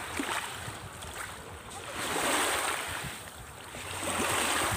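Sea waves washing in twice, each a hiss of surf that swells and fades over about a second.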